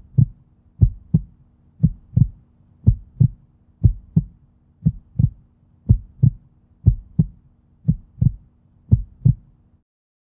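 Heartbeat sound effect: pairs of low thumps, about one pair a second, over a faint steady hum, stopping shortly before the end.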